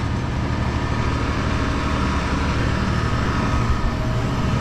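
A heavy vehicle engine running steadily with an even low throb.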